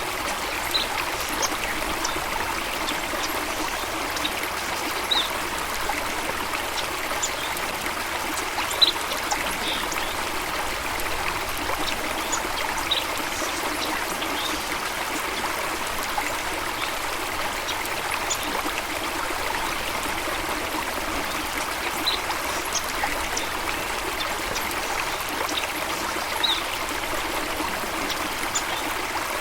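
Running water in a stream or small waterfall, trickling and splashing steadily, with scattered brief high plinks every second or two.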